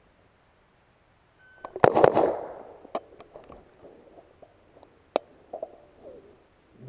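HK MR556 semi-automatic 5.56 mm rifle firing a quick string of two or three shots about two seconds in, followed by a few sharp, quieter cracks.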